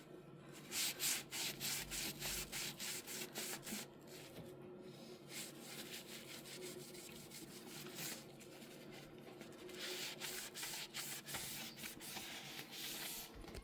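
Damp sponge with Cif cream cleanser scrubbing a stainless steel dishwasher panel in quick back-and-forth strokes, about three a second. The scrubbing comes in two spells with softer rubbing in between.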